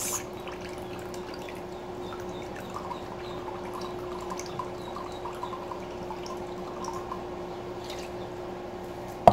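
Soy sauce poured from a small glass into a ceramic bowl of water, trickling and dripping, over a steady low hum. A sharp click near the end.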